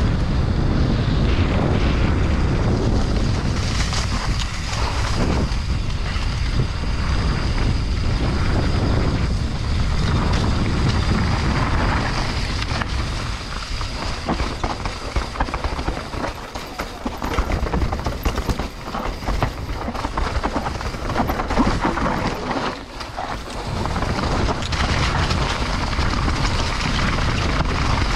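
Mountain bike descending a downhill trail at speed: knobby tyres rolling over dirt, grass and leaves, with wind rushing over the GoPro Hero 9's microphone. Frequent knocks and rattles come from the bike over bumps, standing out most in a quieter, slower stretch in the middle.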